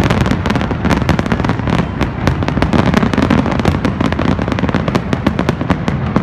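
Aerial fireworks display going off in a dense, rapid barrage: many shell bursts and crackles a second, overlapping, over a continuous low boom.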